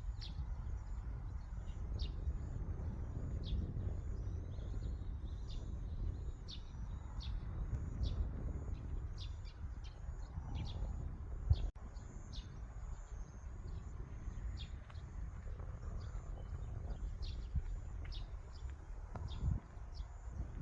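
Small birds chirping repeatedly, short quick falling notes two or three a second, over a steady low rumble of wind or distant background noise, with one brief click about midway.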